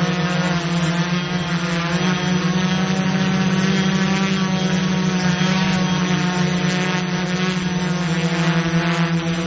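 Multirotor drone's propellers buzzing in flight: a loud, steady hum with many overtones whose pitch wavers slightly.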